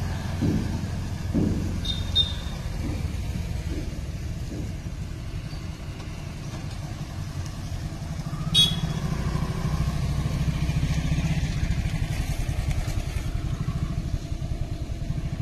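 Motor vehicle engines running close by, a steady low rumble that gets louder from about eight seconds in, with two short high beeps, about two seconds in and about eight and a half seconds in.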